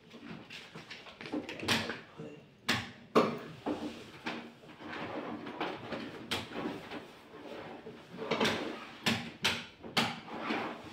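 Irregular knocks, clicks and clatter of a large flat-screen TV being handled and fitted into place, with several sharp knocks a few seconds in and a cluster of them near the end.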